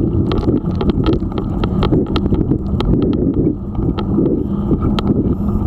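Wind buffeting the microphone of a camera riding on a bicycle. Irregular clicks and rattles, several a second, come from the bike and its mount jolting over the path.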